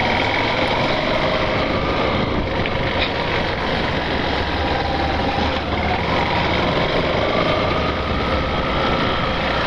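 Yamaha Factor 150's single-cylinder engine running steadily while the motorcycle is ridden over a cobblestone street, mixed with steady wind and road noise.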